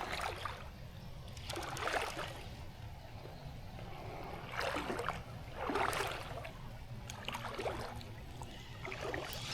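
Water swishing and sloshing in soft, repeated swells every second or two, over a steady low rumble of moving river water.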